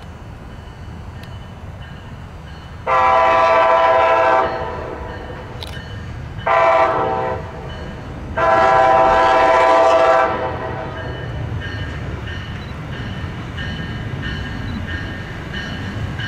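Locomotive air horn sounding three blasts, long, short, then longest, in the pattern of a grade-crossing signal. The train's low rumble runs beneath and grows louder after the horn stops as the train comes closer.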